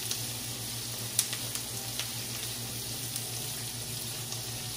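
Diced onions frying in olive oil in a hot cast-iron skillet: a steady sizzle with scattered crackles and pops, the sharpest about a second in.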